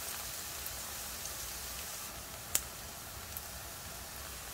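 Chopped onions, garlic and green onions sizzling gently in olive oil in a frying pan: a steady, even hiss. One sharp tap about two and a half seconds in, as the silicone spatula is laid down on a pan.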